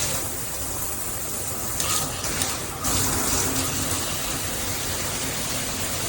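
Handheld shower head spraying water, a steady rushing hiss. The spray's sound changes about two seconds in and again near three seconds, as its spray settings are switched.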